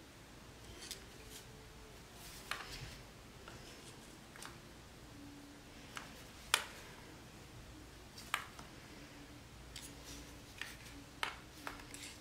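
Small, scattered metallic clicks and light scrapes of a thin screwdriver turning a pilot jet into the body of a Ninja 500 carburetor. One sharper click comes about halfway through, with a few more near the end.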